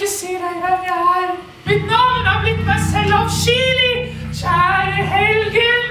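A voice singing long, held notes in a high register. A steady low drone joins under it about two seconds in.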